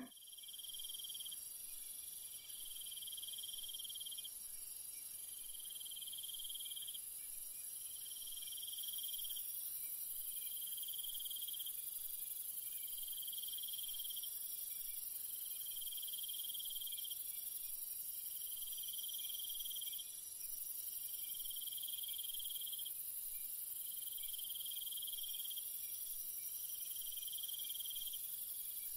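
Night crickets chirping: a trill that repeats about every two and a half seconds, over a steady high-pitched insect hum.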